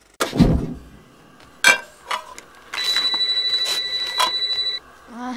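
A low thud and a sharp crack, then an electronic telephone ring with a fast warble, about two seconds long.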